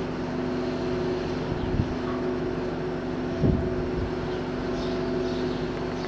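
Steady mechanical hum with several held tones, like a motor or engine running. Two dull thumps come about two and three and a half seconds in.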